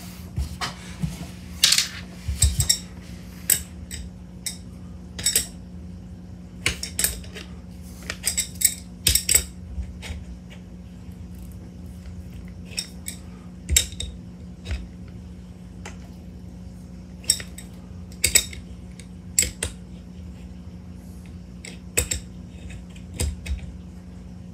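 Irregular metal clicks and clinks as a carbon fiber air bottle is handled and screwed into the metal bottle adapter of a PCP air rifle, over a steady low hum.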